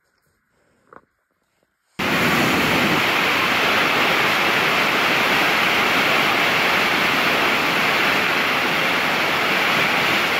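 Near silence, then a large waterfall starts abruptly about two seconds in: a loud, steady rush of falling water.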